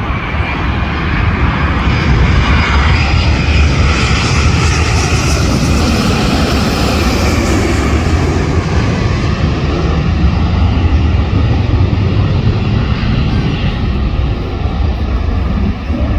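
Jet airliner passing low overhead: a deep, loud engine rumble with a whining hiss that swells to a peak about halfway through and then fades away, leaving the rumble.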